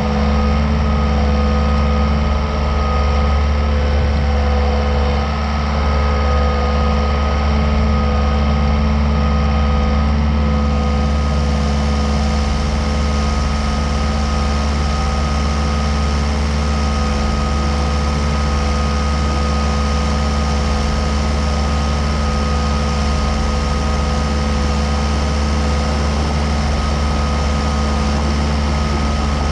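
Komatsu skid steer's diesel engine running at a steady speed, loud and unchanging.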